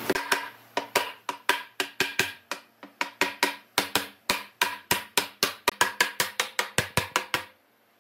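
Wooden mallet knocking on a round pine tabletop, a quick, even run of hard wooden knocks at about four a second, tapping the top down onto the dowels of its legs. The knocking stops about a second before the end.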